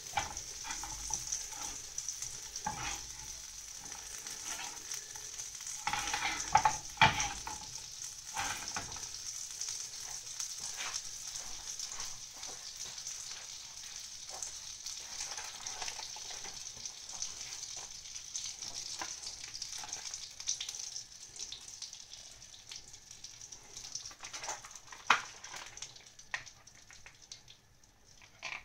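Butter sizzling in a frying pan: a steady high hiss with scattered pops and crackles, a cluster of loud spits about six to seven seconds in. The sizzle fades near the end as the foam settles and the butter browns.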